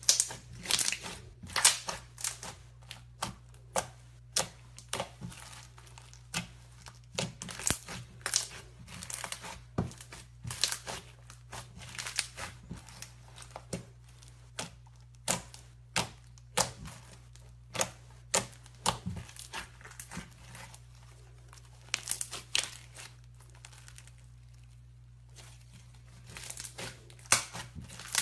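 Slime being squeezed and pressed by hand, giving irregular sticky crackles and pops, about one or two a second, with a short lull about three-quarters of the way through.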